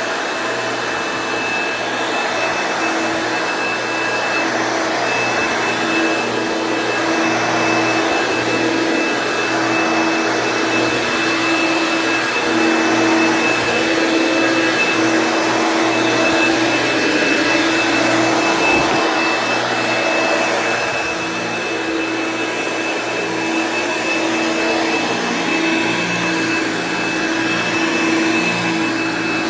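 1964 Hoover Dial-A-Matic 1100 clean-air upright vacuum cleaner running steadily, its motor giving a thin high whine over a steady hum, the level swelling and easing slightly.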